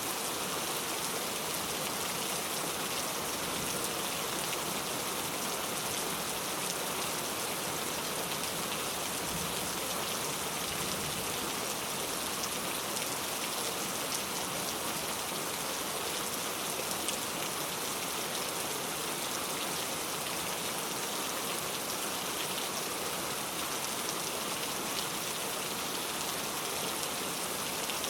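Heavy rain falling, a steady dense hiss of drops on hard surfaces that holds level without letting up.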